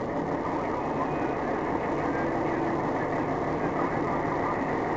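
Steady road and engine noise inside a moving car's cabin, picked up by a dashcam microphone, with indistinct voices in the background.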